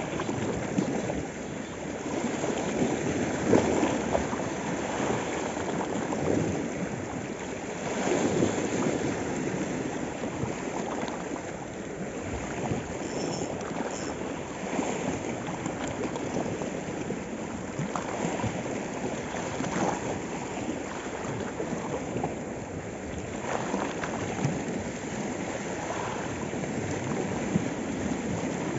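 Small sea waves washing and splashing over shore rocks: a steady rush of water that swells now and then as each wave breaks.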